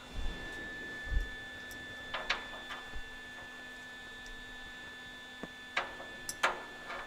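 A few short metallic clicks and taps, as of small steel bracket pieces and round rod being handled and set in place, with a couple of soft low thuds in the first second. Under them runs a steady high-pitched electrical hum.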